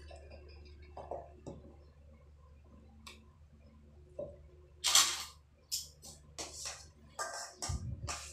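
Hand-washing dishes in a stainless-steel basin: dishes and utensils knocking and clattering in the basin, with a louder clatter about five seconds in and a quick run of short knocks after it.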